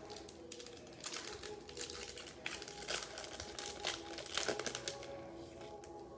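Trading-card pack wrapper crinkling while cards are handled: a dense, irregular run of small crackles and clicks.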